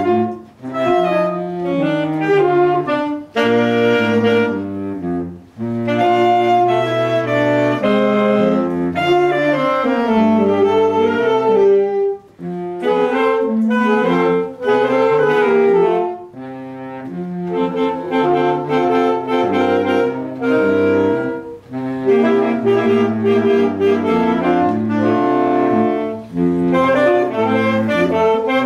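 Saxophone quartet playing a traditional jazz piece: several saxophones in harmony over a low, moving bass part. Brief pauses fall between phrases.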